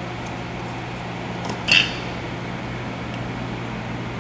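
A steady low hum, with one short sharp click about a second and a half in.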